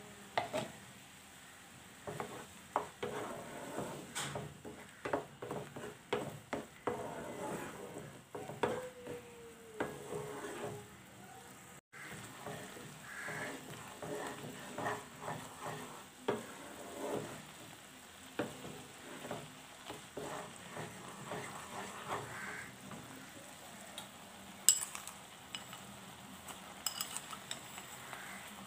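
Wooden spatula stirring and scraping a thick, bubbling rose apple jam mixture in a kadai, with irregular scrapes and knocks against the pan over a low sizzle from the simmering jam. Near the end come a few sharp clinks.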